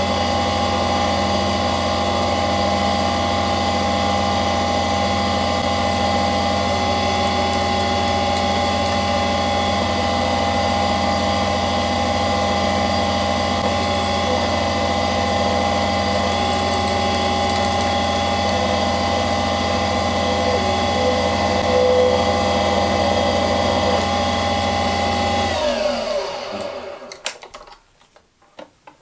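Small bench lathe running at a steady speed with a steady motor whine while a small drill is fed into the spinning work from the tailstock. About 26 seconds in the motor is switched off and winds down, falling in pitch, followed by a few clicks.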